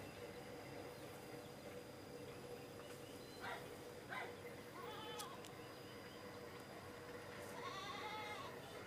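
A goat bleating twice, a short call about five seconds in and a longer one about eight seconds in. Two brief clicks come a little before them.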